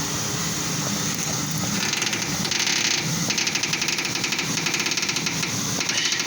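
Front steering of a Ford Crown Victoria making a rapid mechanical ticking clatter as the steering wheel is turned slowly back the other way; the clatter gets stronger about two seconds in. The owner suspects a worn idler arm bushing or a binding tie rod, though none looks obviously bad.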